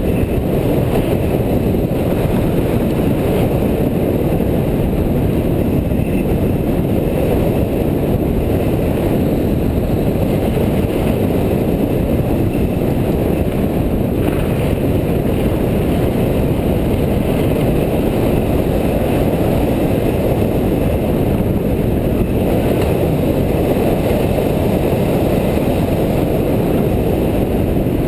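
Mountain bike riding downhill on a dirt and gravel fire road: steady rushing wind noise on the camera microphone mixed with tyre rumble, with no breaks or distinct impacts.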